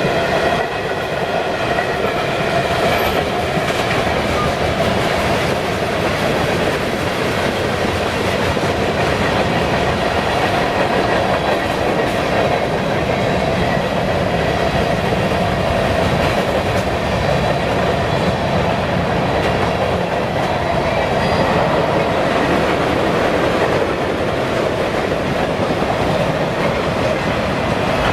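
Freight train rolling past, steel wheels clattering over the rail joints in a loud, steady rumble.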